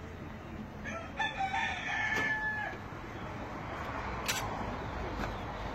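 A rooster crows once, about a second in, for roughly two seconds and ending on a held note, over steady low background noise; a single sharp click comes later.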